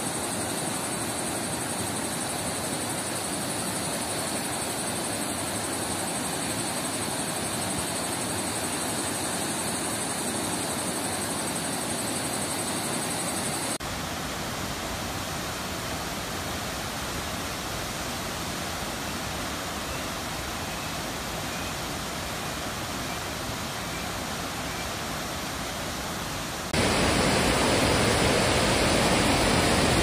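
Steady rushing of a tall waterfall. The sound shifts abruptly about halfway through and again near the end, where it becomes louder and fuller.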